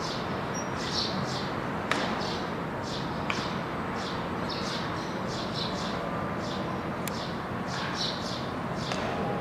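Small birds chirping repeatedly over a steady background hiss, with a few sharp pops of a baseball striking a catcher's mitt, the loudest about two seconds in.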